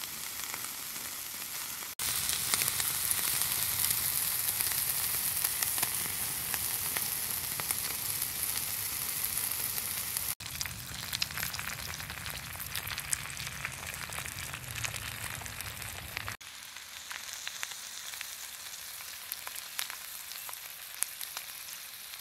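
Kebabs and sausages sizzling and spitting on a grill over a wood-burning box stove, dotted with small pops and crackles. About halfway the sound cuts to the stove's wood fire crackling with a low rumble, then near the end to a quieter, thinner sizzle of an egg frying in butter in a pan.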